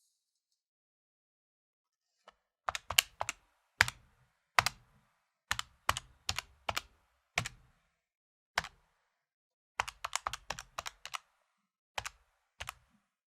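Keys of an electronic calculator being tapped with a finger: a run of sharp plastic key clicks at an uneven pace, starting about two seconds in, with a quicker flurry of presses near the end.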